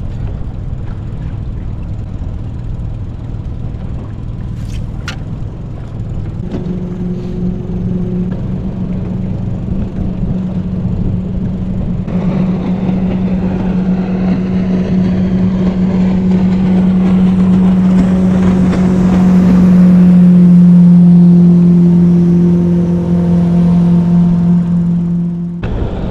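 A motorboat's engine running with a steady hum that grows louder to a peak about twenty seconds in, then drops slightly in pitch as it eases off; the sound cuts off abruptly near the end.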